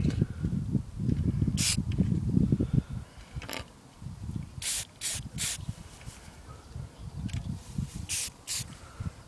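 Aerosol spray paint can sprayed in short spurts, about seven quick hisses with pauses between, over a low rumble that is louder in the first few seconds.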